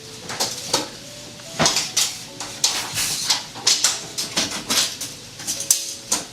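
Steel tape measure being pulled out and handled to measure a length, its metal blade clattering and clicking in a string of sharp rattles.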